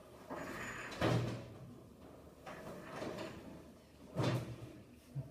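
Knocks and thumps of a lectern being moved into place on a hard floor, with scraping and shuffling between; the loudest knocks come about a second in and about four seconds in.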